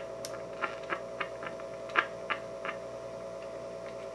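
Faint scratchy clicks from the Admiral 329 record player's speaker as the phono needle is touched, over a steady hum from the tube amplifier. The clicks come irregularly, several a second, then stop about two-thirds of the way through, leaving only the hum. The amplifier is passing signal, but very quietly.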